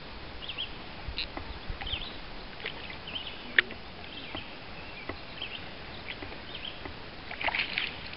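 Hooked brook trout splashing at the surface as it is played beside a boat, with water lapping and a single sharp knock about three and a half seconds in. A louder burst of splashing comes near the end as the landing net goes into the water.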